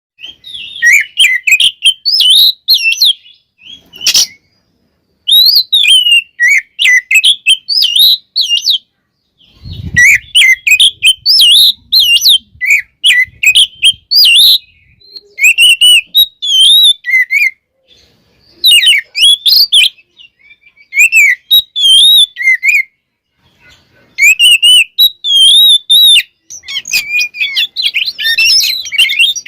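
Oriental magpie-robin (kacer) singing a loud, varied song in bursts of rapid whistled phrases with short pauses between them. There is a sharp click about four seconds in and a brief low thump near ten seconds.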